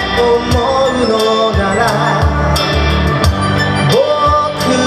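A man sings to his own strummed acoustic guitar, holding a long note near the end.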